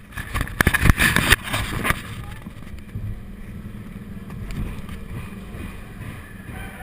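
Roller coaster train pulling out of the station, with a few loud clanks and rider voices in the first second or so. After that the train settles into a steady low rumble with a faint hum.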